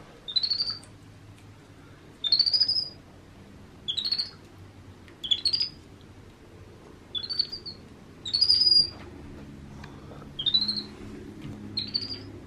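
Baby capuchin monkey giving high-pitched chirping calls, each a short upward-sweeping chirp, about eight of them a second or two apart.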